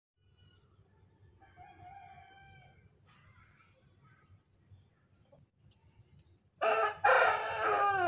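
A rooster crows loudly near the end, one long call that falls in pitch as it ends. Before it there are faint short chicken calls.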